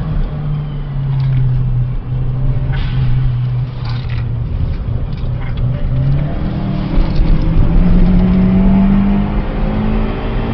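Toyota Starlet turbo's 1.3-litre turbocharged four-cylinder, with an aftermarket back box and air filter, heard from inside the car under way. Its revs drop near the start, hold fairly steady, then climb steadily through the last few seconds.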